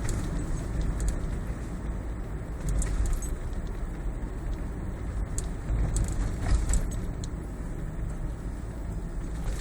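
Road and tyre rumble inside a moving Toyota Prius cabin, with faint irregular ticking rattles from behind the dashboard under the instrument cluster, the abnormal noise being chased down.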